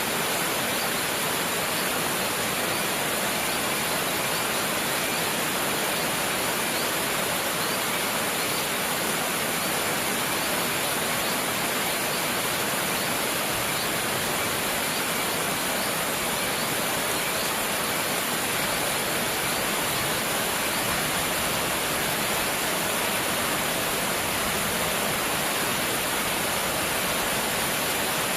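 Steady rain, an even hiss that stays constant without pauses.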